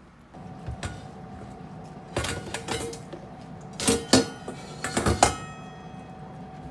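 Metal cookware clattering and clinking in four short bursts, the last leaving a brief metallic ring, over a steady faint hum.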